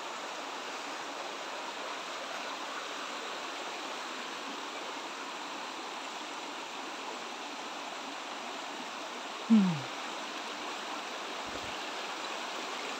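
Shallow rocky stream rushing steadily over stones. One brief, loud sound falling in pitch cuts in about three quarters of the way through.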